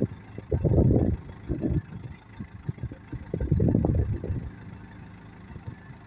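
Terex TX760B backhoe loader's diesel engine running while the backhoe boom is raised, with irregular low rumbling gusts, loudest about a second in and again around four seconds, that sound like wind buffeting the microphone.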